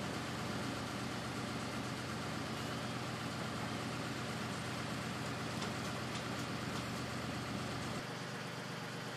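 An engine idling steadily, with an even low hum. The deepest part of the rumble drops away abruptly about eight seconds in.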